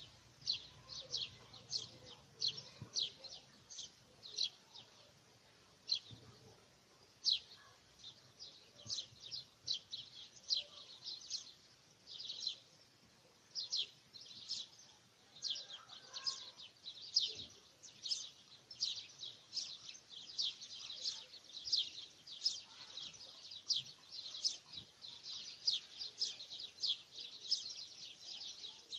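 Small birds chirping: a continuous run of short, high chirps, two or three a second, with a brief lull about twelve seconds in.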